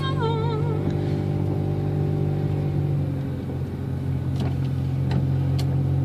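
Steady in-cabin drone of a car's engine and tyres while driving slowly. A melodic voice from music fades out about a second in, and a few faint clicks come in the second half.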